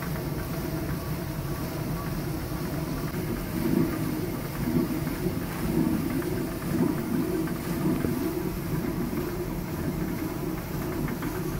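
Water-powered stone mill grinding grain: the upper millstone turning on the bed stone with a steady low rumble, and faint rapid ticking from the grain feeder over the stone's eye.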